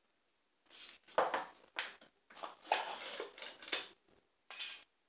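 Peel-off foil seal being pulled from a can of Blue Diamond almonds: crinkly tearing in a series of bursts over about three seconds, then one short rustle near the end.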